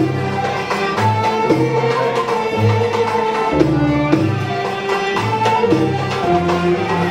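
Live Arabic ensemble music: a melody of held notes on violin and other instruments over a pulsing bass and a steady hand-drum beat.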